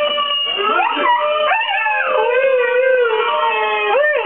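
Siberian husky howling along with recorded wolf howls played from a computer. Several long howls overlap, held steady or gliding up and down in pitch, with wavering rise-and-fall swoops near the end.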